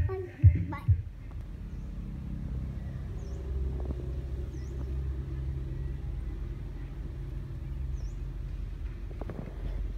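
A steady low rumble, with a few sharp thumps in the first second.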